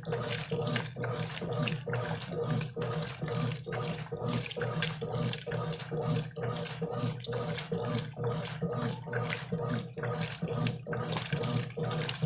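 Brastemp Clean top-loading washing machine agitating its load: water sloshing in irregular surges, several a second, over a steady motor hum.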